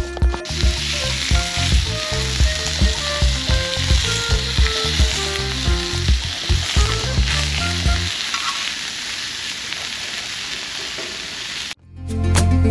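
Marbled beef steaks sizzling on a hot round griddle pan set on a kerosene heater: a steady frying hiss. Near the end the sizzle cuts off suddenly.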